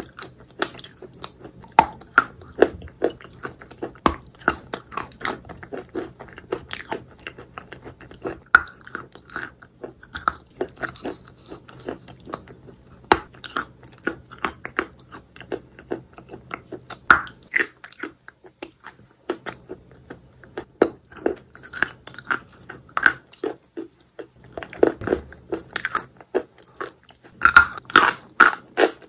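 Wet chalk coated in clay paste being bitten and chewed: soft crunching and wet mouth clicks in an irregular run, with louder clusters of crunches every few seconds and the busiest stretch near the end.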